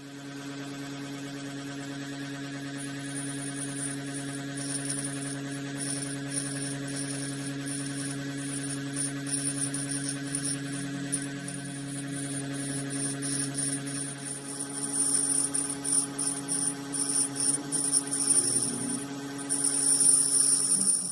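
A power tool's electric motor starts and runs with a steady hum, then stops abruptly. From about two-thirds of the way in, an uneven high-pitched grinding rises and falls over it as a dull step drill bit is being sharpened.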